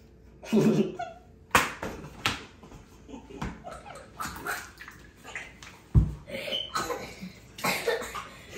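Muffled laughing and spluttering from a person with a mouthful of water, broken by three sharp smacks, about one and a half, two and a half and six seconds in.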